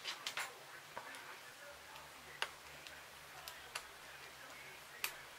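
A few scattered, sharp little clicks and taps of small metal parts handled by hand: the cam gear and cam housing of a Saito FA-120 model four-stroke engine being worked apart.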